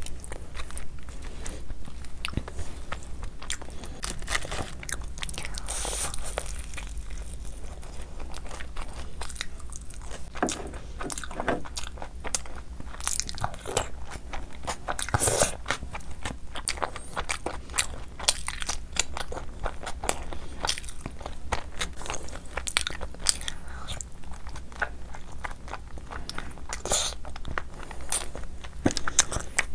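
Close-miked chewing and wet mouth smacks of a person eating khichdi and curry by hand, with squelching as fingers mix the soft rice on a steel plate. The sound is a constant, irregular run of sharp little clicks and smacks.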